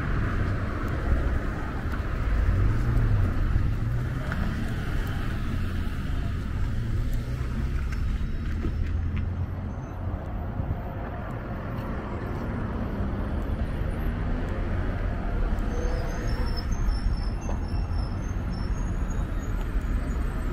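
Street traffic: car engines running and passing, with one engine rising in pitch a few seconds in. Faint short high chirps near the end.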